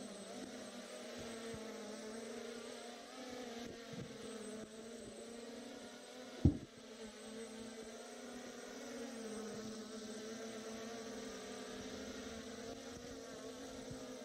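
Small electric quadcopter built into a dead rat's body, its propellers giving a steady buzzing whir whose pitch wavers slightly as the throttle changes. There is one sharp knock about halfway through.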